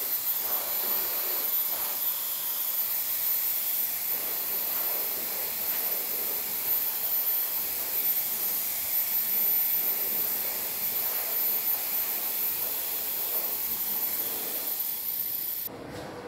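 Handheld hair dryer blowing hair, a steady rush of air with a thin high whine on top; it switches off abruptly near the end.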